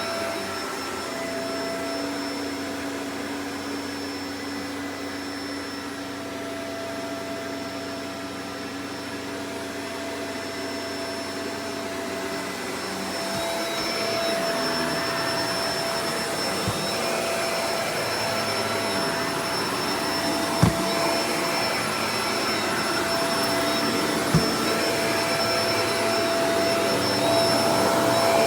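Shark Professional Powered Lift-Away DLX (NV586) vacuum cleaner running with a steady motor whine. It gets louder and rougher about halfway through, and there are two brief knocks later on.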